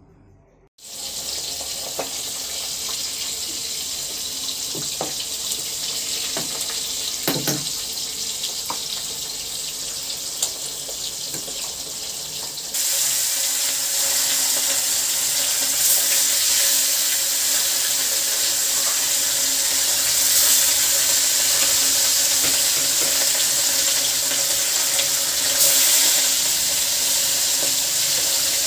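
Spices and masala sizzling in hot oil in a wok, a steady hiss that gets suddenly louder a little under halfway through. There are a few light knocks in the first part.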